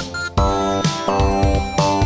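Upbeat electronic background music: synth chords over a steady beat, with a short break just after the start.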